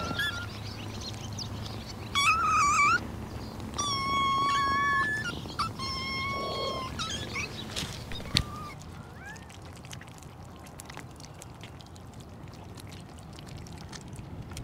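Kittens meowing: three high, drawn-out meows about two seconds apart, each lasting about a second, and a short one soon after. Then only faint ticking.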